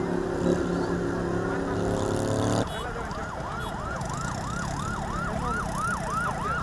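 A loud, low, steady drone of several tones, which stops abruptly about two and a half seconds in. An emergency vehicle siren then wails in a fast yelp, its pitch sweeping up and down about twice a second.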